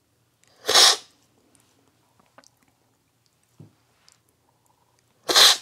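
Two loud, sharp slurps of coffee from a cupping spoon, one about a second in and one near the end. Each is a quick, hissing intake of air that sprays the coffee across the palate, the standard cupping slurp.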